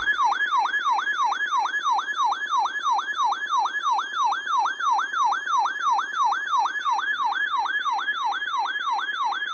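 Electronic siren in a fast yelp, its pitch swooping up and down about three times a second.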